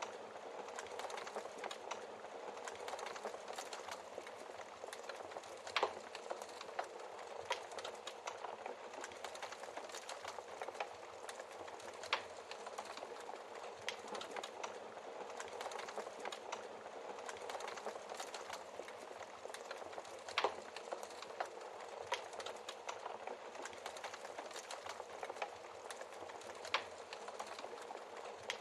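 Wood fire crackling in a fireplace: a steady crackle with many small snaps, and four louder log pops spaced several seconds apart.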